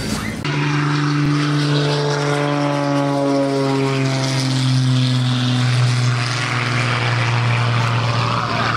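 Extra 330 aerobatic plane's piston engine and propeller making a low pass: a steady drone that starts suddenly about half a second in and slowly falls in pitch as the plane goes by. A rushing hiss swells near the end.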